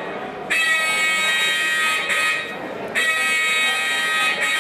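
A duck call blown by a contest caller: long, drawn-out reedy notes, one starting about half a second in and another about three seconds in, each held for about two seconds.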